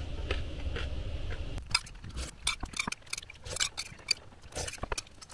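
A steady low rumble, then, from a little under two seconds in, a run of sharp, irregular clinks and taps of eating utensils against dishes.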